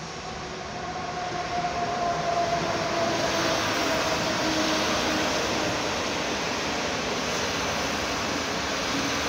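Newag Griffin EU160 electric locomotive hauling Intercity passenger coaches past the platform. Wheels rolling on the rails swell in loudness over the first three seconds as the locomotive comes by, then hold steady as the coaches pass, with a faint whine that falls slightly in pitch.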